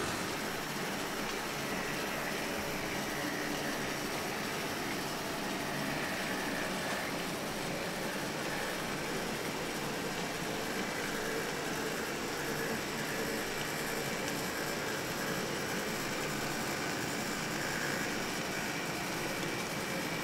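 HO scale model freight train running along the layout track: a steady, even running noise of the motor and wheels on the rails.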